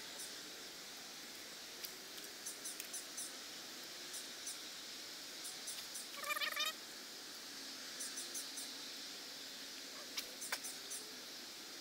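Quiet pondside ambience with scattered faint high ticks, and one short pulsed bird call about six seconds in, the loudest sound here. A couple of sharp clicks follow a little after ten seconds.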